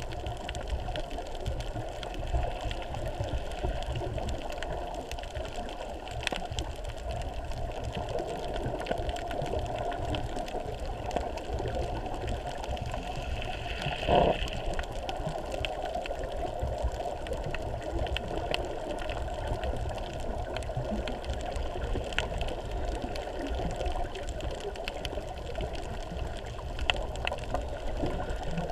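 Underwater ambience picked up by a GoPro in its waterproof housing: a steady muffled rumble and hiss of water, with scattered faint clicks and a brief louder whoosh about halfway through.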